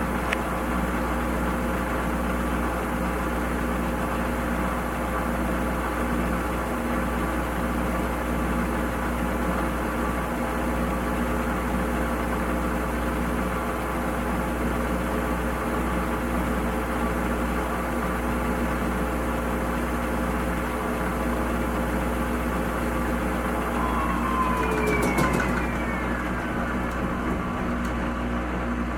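Washing machine running steadily with a constant motor hum. About 24 seconds in, a brief falling whine with a few clicks rises over the hum.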